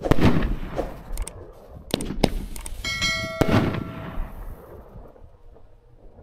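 Epic Fireworks 'Victory' 18-shot 500-gram fanned cake firing: several sharp shot reports and bursts, the loudest right at the start and another about three and a half seconds in. Just before that second big report there is a brief bell-like ringing tone.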